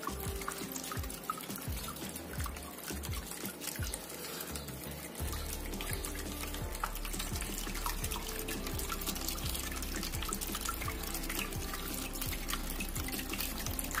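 Water trickling and splashing down a small cement waterfall fountain, with many small drips and splashes, over background music. A low steady hum comes in about five seconds in.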